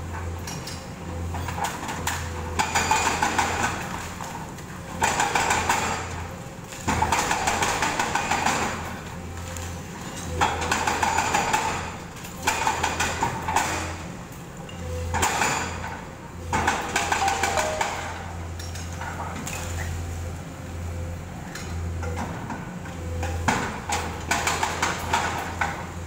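Excavator-mounted hydraulic breaker hammering at a concrete building in repeated bursts of one to two seconds, over the steady hum of the excavator's engine.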